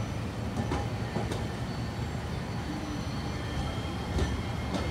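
Sapporo streetcar, a three-section low-floor articulated tram of the A1200 "Polaris" type, passing slowly over the street track: a steady low rumble of wheels on rails with a few sharp clicks.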